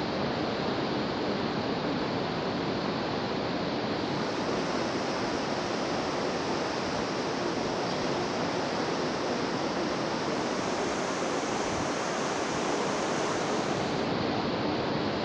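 Steady rushing noise of wind and sea on the open deck of a warship, even and unbroken.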